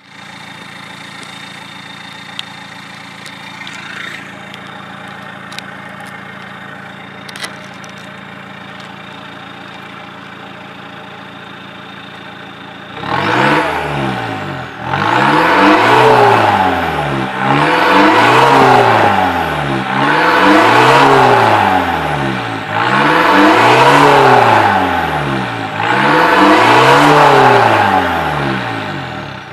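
Opel Vectra B's 2.0 DTI turbo-diesel engine idling steadily through a custom exhaust. About halfway through it is revved six times in a row, each rev rising and falling in pitch, much louder than the idle.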